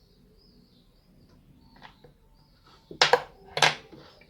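Two sharp clinks against a bowl about half a second apart, with a few lighter clinks before them: kitchen utensils and a bowl being handled while an egg and milk are readied for an egg wash.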